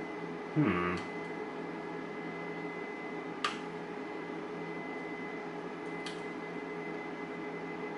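Steady fan hum with a fixed whine from a desktop backup power supply. A few light clicks from lock picks working a pinned padlock come through it. About half a second in, a brief, louder low sound slides down in pitch.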